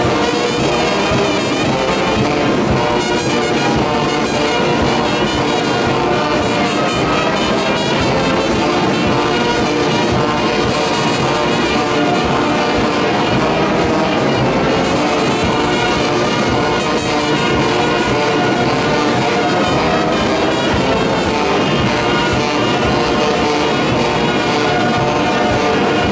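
A brass band of trumpets, trombones and larger bass brass playing together, loud and without a break.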